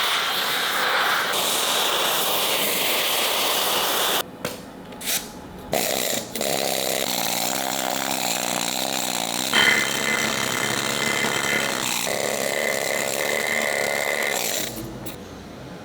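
Pneumatic needle gun hammering at rust scale on steel armour. It runs continuously, stops briefly a few times about four to six seconds in with short restarts between, then runs on and dies away near the end.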